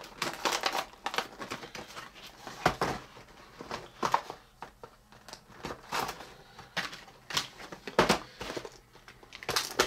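Toy packaging being handled and opened: irregular plastic crinkling and small clicks, with two louder knocks, one under 3 seconds in and one near the end.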